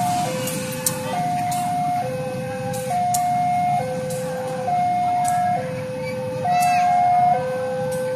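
Railway level-crossing warning alarm sounding a steady two-tone high-low signal, each tone held a little under a second, warning that a train is approaching, over a low rumble.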